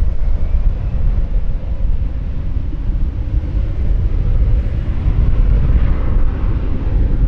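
Jet engines of an Airbus A320 airliner on final approach, growing louder toward the end as it nears touchdown, under heavy wind buffeting on the microphone.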